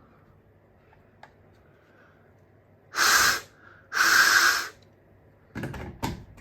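Two short, loud bursts of hiss about a second apart, followed near the end by a few light clicks and knocks.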